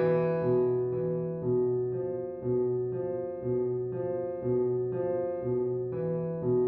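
Slow piano music: a repeating figure of notes struck about twice a second, each ringing on into the next.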